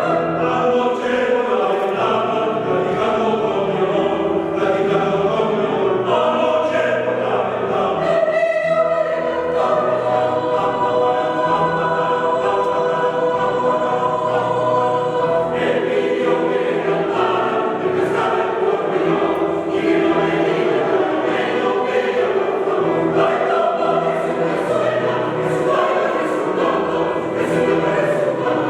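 A choir singing a Mexican son, its voices carrying steady held chords with no break.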